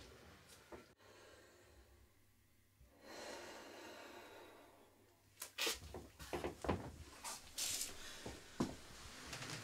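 A man breathing hard in sharp, uneven gasps and sniffs, starting about five and a half seconds in.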